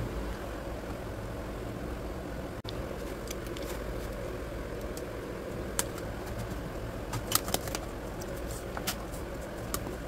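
Sharp plastic clicks, a few in the second half, as an HP laptop keyboard is pressed down and snapped into its palmrest clips, over a steady low background hum.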